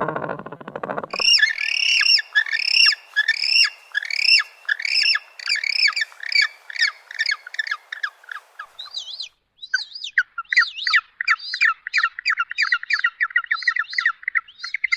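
Gentoo penguin chicks peeping: a long series of high chirps that slide down in pitch and come faster and faster, then after a short break a rapid run of shorter, lower peeps. A deeper, pitched call sounds in the first second.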